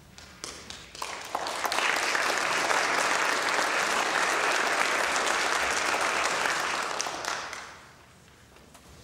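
Audience applauding: a few scattered claps at first, swelling to full applause within about two seconds, holding steady, then dying away near the end.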